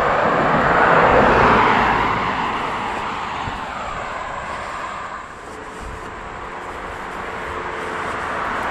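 Cars passing on a two-lane road: one rushes by about a second in and fades away, then another approaches, growing louder near the end.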